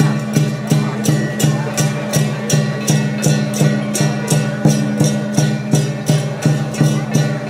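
Lion-dance percussion band: a big drum beaten in a steady, even rhythm of about three strokes a second, with cymbals crashing on the beats over a ringing metallic tone.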